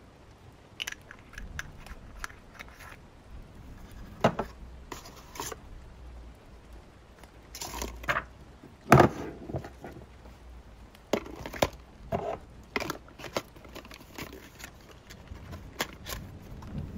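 Book and stationery being handled during annotating: irregular clicks, taps and short rustles, the sharpest about 4 and 9 seconds in, over a faint low rumble.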